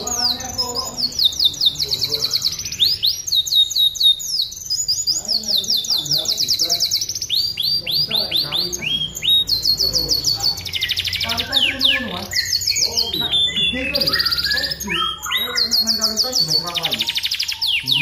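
Domestic canary singing a long unbroken song of fast, high repeated notes and buzzing trills.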